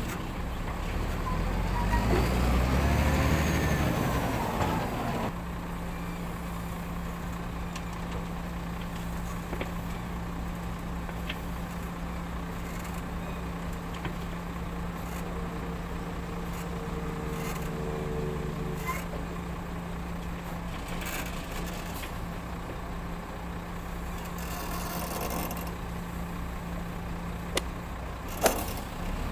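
Diesel wheel loader loading a dump truck: the engine revs up and down for a few seconds, then settles into a steady low idle hum. A single sharp clank comes near the end.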